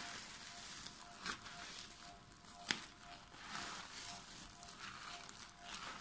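Wet squishing and squelching of soaked, frothy soap paste squeezed and kneaded by hand in a bowl, in uneven swishes. There are two sharp pops or clicks, one about a second in and a louder one near the middle.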